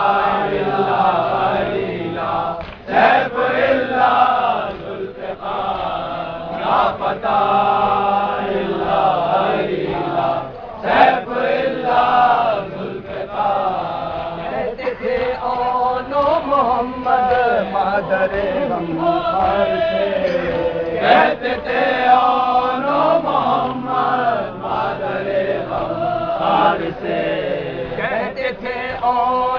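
Men's voices chanting an Urdu devotional recital together, unaccompanied, the melody rising and falling line by line.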